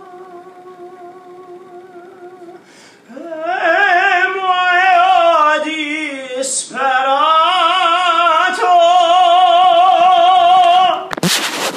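A voice singing long wordless held notes with wide vibrato, in an operatic style; it starts soft and swells much louder about three seconds in, with a brief break in the middle. A short noisy burst comes near the end.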